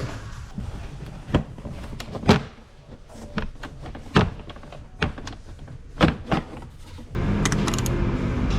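A series of sharp knocks and clanks of hard objects, about seven spread over six seconds, then a louder steady sound with a low hum comes in about seven seconds in.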